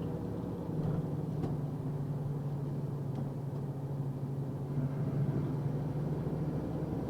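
Box truck driving, its engine and road noise making a steady low drone.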